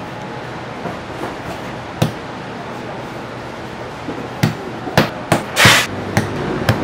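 Pepper-bun dough portions being torn off a dough log and set down by hand on a wooden worktable: scattered sharp knocks and slaps, one about two seconds in and a quick run of them in the second half, with a longer, louder scuff shortly before the end.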